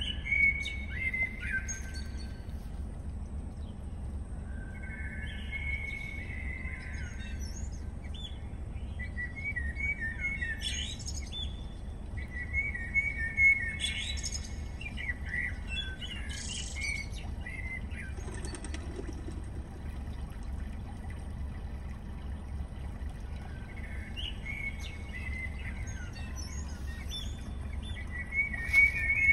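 Recorded birdsong played through a car's upgraded Eton three-way speaker system: bird chirps and calls in short phrases every few seconds, over a steady low hum.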